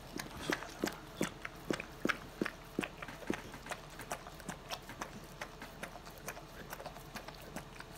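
Rottweiler mother licking her newborn puppy clean, making quick wet licking and smacking sounds about three times a second. The licks are louder for the first few seconds, then softer.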